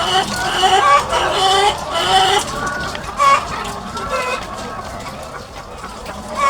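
A flock of egg-laying hens clucking and calling, many short pitched calls overlapping, busiest in the first three seconds and thinning out after.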